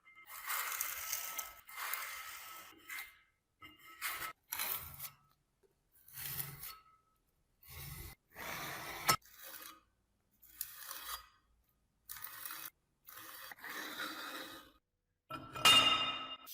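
Scraping and rubbing on metal in a string of short separate spells, each a half to two seconds long, with dead silence between them; the loudest comes near the end.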